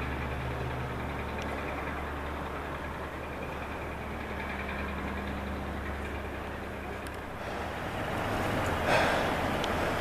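A running engine makes a steady low hum and rumble, with a brief rustle about nine seconds in.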